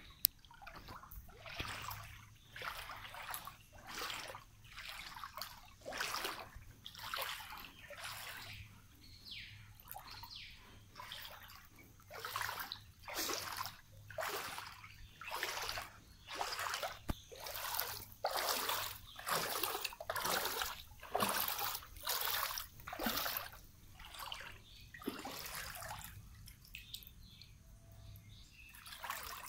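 A person wading through floodwater, each stride making a sloshing splash. The strides come steadily, about one or two a second, then stop for a few seconds near the end.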